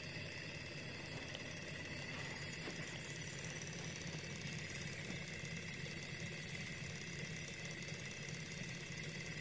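Mini stainless-steel Stirling hot-air engine running steadily on an alcohol burner flame. Its flywheel, pistons and the small belt-driven LED generator make a faint, even mechanical whir.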